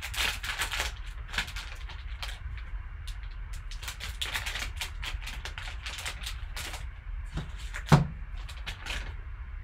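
Foil trading-card pack crinkling and rustling in gloved hands as it is opened and handled. A single sharp knock comes about eight seconds in.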